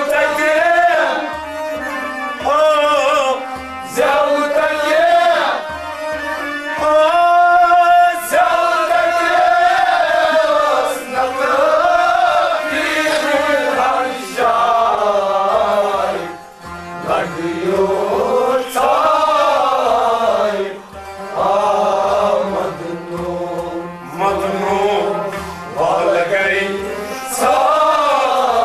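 A man singing a Kashmiri song in long, wavering, ornamented lines, over a regular drum beat.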